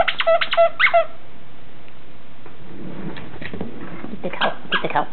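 Squeak toy being squeezed in a Jack Russell terrier puppy's mouth: a quick run of about five sharp squeaks in the first second, then a looser run of softer squeaks near the end.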